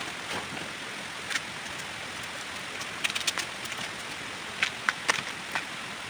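Crisp snaps and crackles of bamboo shoot sheaths being torn off by hand, in a cluster about three seconds in and again near the end, over a steady hiss.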